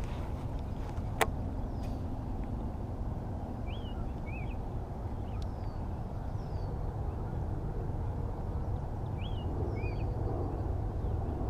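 Still lakeside ambience: a steady low rumble, with a small bird chirping in short rising-and-falling notes, two pairs about five seconds apart. A single sharp click stands out about a second in.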